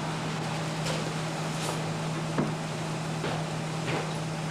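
Laundromat ambience: running machines give a steady low hum under a noisy background, with light clicks and knocks about five times.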